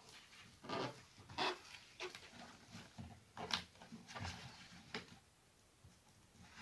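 Faint, brief scrapes and clicks of plastic guitar picks being worked around the edge of an iPad, prying the glued front glass away from the body and cutting through the adhesive. Several separate strokes come roughly a second apart.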